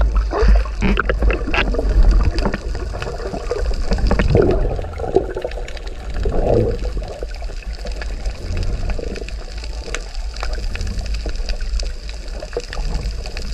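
Muffled underwater sea sound picked up by a submerged camera. There is splashing and bubbling as it goes under in the first couple of seconds, then a steady low rumble of water with scattered faint clicks.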